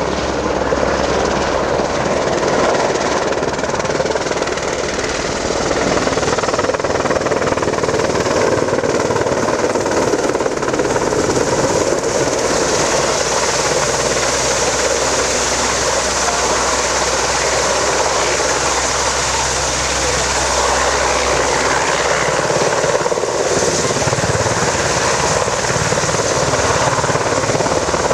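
AgustaWestland EH101 three-engine helicopter flying a display, its rotor and turbines running loud and steady, with a high turbine hiss that grows stronger about halfway through.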